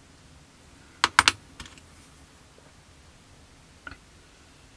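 Small hand tools being handled at a hobby bench: steel tweezers set down and picked up, giving three sharp clicks close together about a second in, a lighter tap just after, and one faint click near the end.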